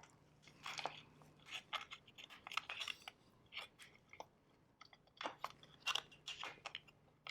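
Faint, irregular clicks and scrapes of a 2.5 mm Allen key and small screws working against the plastic axle cover of an electric scooter's rear wheel as the cover is screwed back on.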